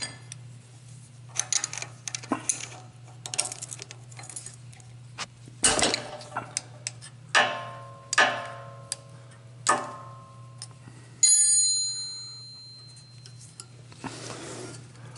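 Steel wrench and metal parts clicking and clinking against the valve rocker arms and adjusting nuts of a small overhead-valve Briggs & Stratton engine as the rockers are adjusted. Scattered taps give way to several ringing clinks in the middle, and a high metallic ring about eleven seconds in that dies away over a second or so.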